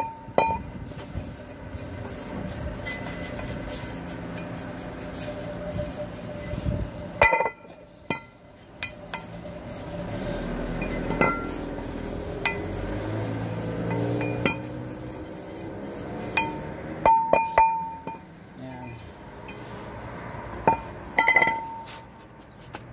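Cast-iron brake drum being scrubbed with a plastic bristle brush: a scratchy brushing rasp broken by sharp metallic clinks that ring briefly as the drum is knocked and shifted, several of them close together near the end.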